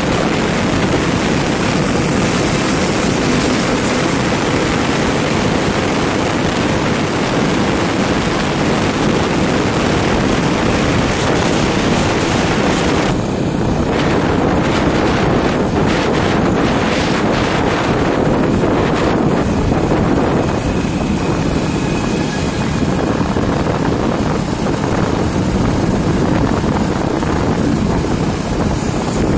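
Wind rushing over the microphone of a motorcycle riding at highway speed, mixed with road and engine noise. It is steady at first and becomes more uneven and gusty from about halfway.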